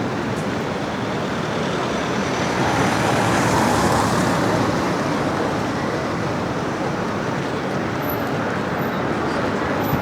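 Steady city-street traffic noise, with one vehicle passing close and growing louder about three to four seconds in, then fading back.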